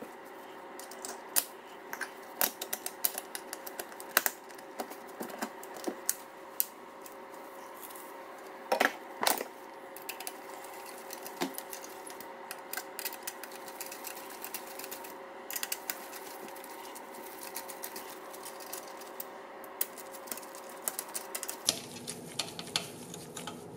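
Scattered small clicks and taps of screws and a hand driver as a motor mount is screwed onto the arm of an X-class quadcopter frame, a couple of louder clacks about nine seconds in, over a faint steady hum.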